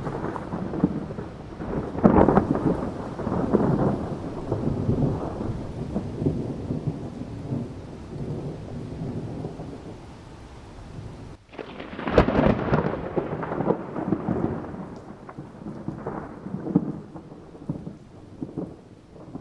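Thunder in a summer thunderstorm: a loud peal about two seconds in that rolls on as a long rumble, then after a brief sudden break another loud peal about twelve seconds in, rumbling and slowly dying away. A steady hiss runs underneath.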